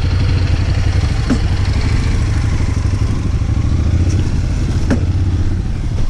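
Royal Enfield Classic 500's air-cooled single-cylinder engine idling steadily with a low, even thump.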